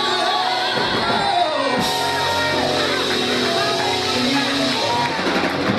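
Live church music playing, with voices singing and shouting over it.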